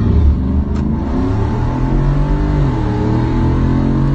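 V8 pickup trucks accelerating hard off the line in a drag race. The engine pitch climbs, drops at a gear change about two and a half seconds in, then climbs again.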